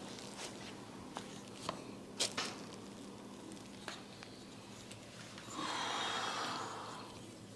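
Hands massaging a person's head: a few light clicks and taps on skin and hair, then a longer rubbing swish about two-thirds of the way through.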